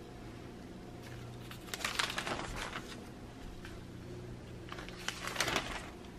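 Glossy newspaper coupon-insert pages being turned, the paper rustling twice, about two seconds in and again near the end, over a low steady hum.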